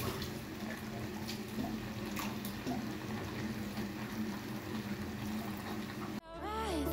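Beef stock being ladled from a pot and poured into a pan of stewing beef and French beans: a steady trickle of liquid with a few soft clinks of the ladle. Music cuts in near the end.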